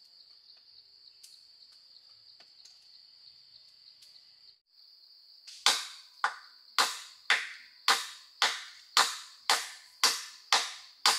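A steady high insect buzz, then from about halfway a quick, even run of loud, sharp blows on wood, about two a second, each dying away quickly.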